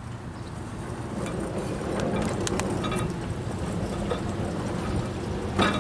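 A sawn board is handled and turned, giving a few light clicks and one sharper knock near the end, over a steady low rumble.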